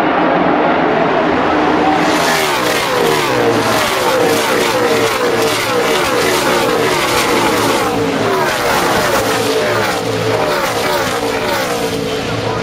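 A field of NASCAR V8 stock cars racing past at full speed. Many overlapping engine notes fall in pitch one after another as each car goes by, building up about two seconds in.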